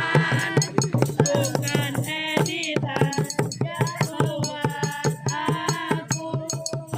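Percussion group playing a fast, steady beat, with rattling shaker-like hits, over a pitched melody.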